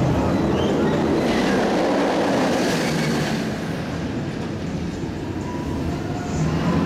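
Steel roller coaster train, the Incredible Hulk Coaster, running along its track overhead with a continuous rushing rumble of wheels on steel rail. It grows louder and brighter from about a second to three and a half seconds in as the train passes close.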